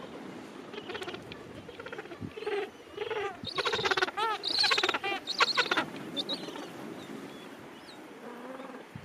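Gentoo penguins calling in a colony: one long call in several pulsing phrases grows louder from about three seconds in, is loudest around four to five and a half seconds, then dies away. Fainter calls from other penguins sound around it.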